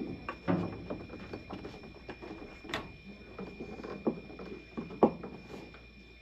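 Irregular clicks, taps and rattling of plumbing parts and tools being handled while a shut-off valve is fitted to a water line, with a sharp knock about five seconds in.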